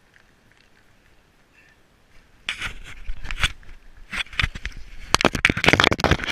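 Handling noise from a GoPro Hero 3 action camera being picked up and moved: after a quiet start, a dense run of loud crackles, rubbing and knocks begins about two and a half seconds in.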